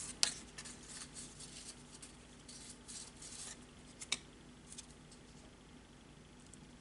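Faint rustling of cardstock being handled, with a short sharp click just after the start and another about four seconds in.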